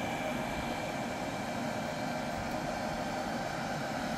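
A steady whirring hum with several faint, steady high tones held over it.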